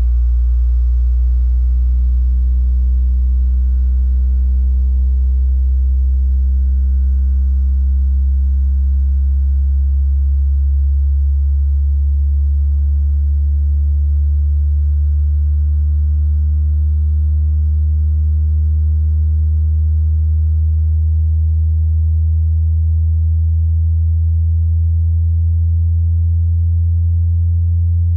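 Orion XTR124D 12-inch subwoofer playing a loud, deep test tone that rises slowly in pitch, with fainter overtones above it.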